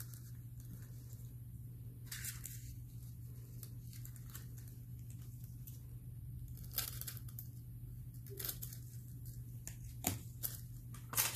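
Thin plastic nail-art foil being handled and torn off in gloved hands, making a few short faint crinkles and rustles over a steady low hum.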